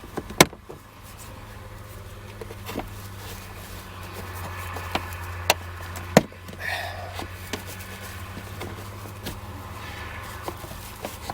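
Plastic bezel around a Saturn S-series sunroof switch and map lights being pried loose by hand: scattered sharp clicks and snaps of the trim and its clips, the loudest about half a second in and about six seconds in, over a steady low hum.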